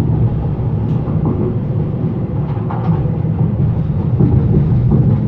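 Steady low rumble of a regional train, heard from inside the passenger carriage by the doors, with a few faint clicks and rattles.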